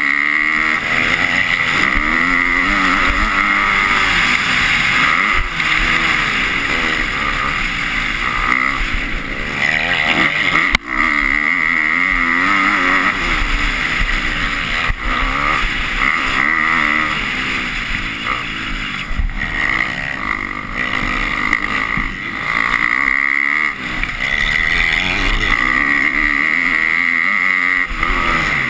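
250-class motocross bike engine heard on board, revving up and down over and over as it is ridden hard round the track. There is a brief sharp drop in the sound about eleven seconds in.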